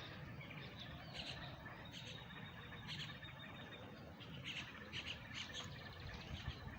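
Birds chirping faintly, with short calls scattered through over a low background hum of the outdoors.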